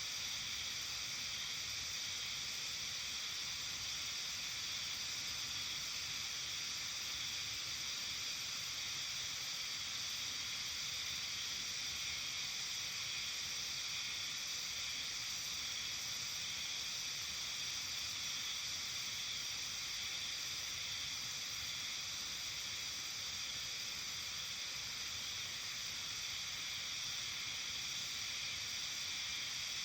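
Steady, unbroken high-pitched chorus of insects, several overlapping bands of sound with no pauses.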